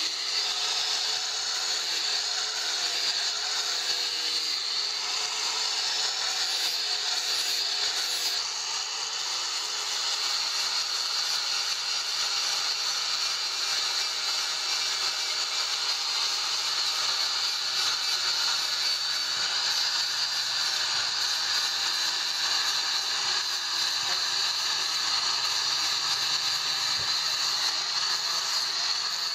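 Electric angle grinder running continuously as its disc grinds the steel of a machete blade. It makes a steady high whine, and its lower tone wobbles in pitch over the first several seconds as the disc is pressed against the metal.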